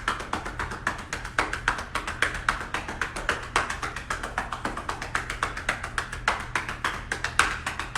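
Hands patting rapidly up and down a person's back, several even pats a second: chest physiotherapy percussion to loosen and mobilise mucus in the lungs.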